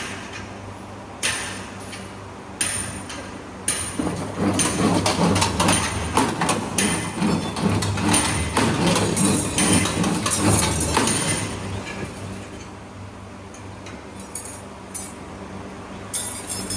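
CNC servo stirrup bending machine working 8 mm steel bar: a few sharp metallic knocks, then a run of dense clanking and rattling for about seven seconds over a steady motor hum, before it quietens with one more knock near the end.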